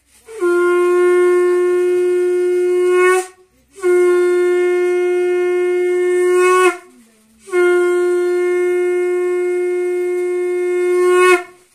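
Conch shell (shankha) blown in three long, steady blasts of about three seconds each, with short breaks between them.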